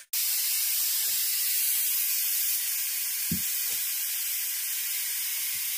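Steady hiss of steam escaping from a puttu steamer, with a few soft knocks.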